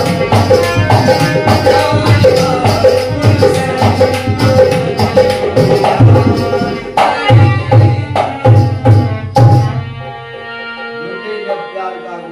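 Dholak drum played in a fast, steady rhythm over held harmonium chords, with jingling hand percussion. About ten seconds in, the drumming stops and the harmonium plays on more quietly.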